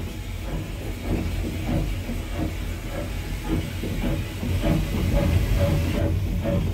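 Andrew Barclay 0-6-0 saddle tank steam locomotive on the move, heard from inside its cab: a low rumble with hissing steam and a regular rhythmic beat that grows clearer from about halfway in.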